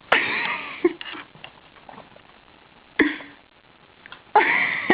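Dog sniffing and snorting in three short, loud, breathy bursts.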